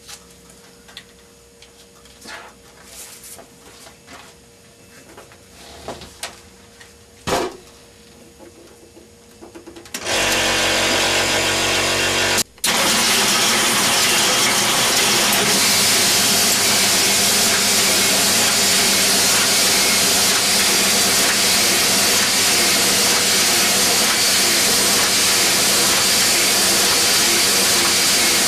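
A small offset printing press starts up about ten seconds in: its motor and rollers cut out for an instant, then run on loudly and steadily. Before that there are only a few quiet clicks and knocks of handling at the bench.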